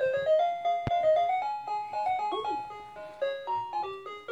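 Toy cash register playing a simple electronic melody, one note after another, with a click from a button press about a second in.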